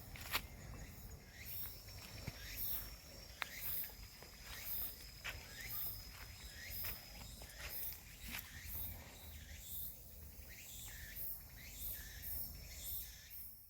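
Insects chirping in woodland: a steady high trill that drops out for a while and returns near the end, over very high chirps repeating about twice a second. Two sharp clicks come near the start and a few seconds in.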